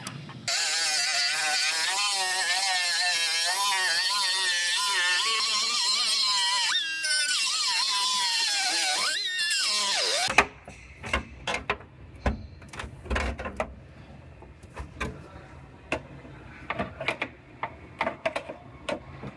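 Pneumatic cut-off tool's small abrasive wheel cutting through the sheet-steel trunk floor pan: a loud high whine whose pitch wavers up and down, stopping abruptly about ten seconds in. After that come irregular sharp knocks and clicks of hand-tool work on the bare metal.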